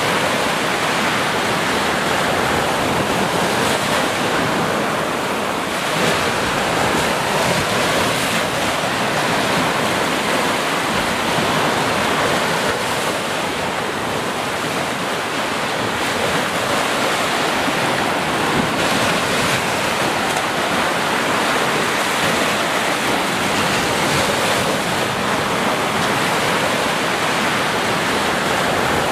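Small ocean waves breaking and washing up a sandy beach, a steady rush of surf.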